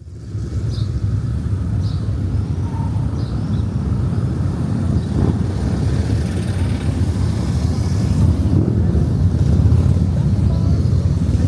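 Outdoor town street ambience: a steady low rumble that fades in at the start and holds, with a few faint short high chirps in the first few seconds.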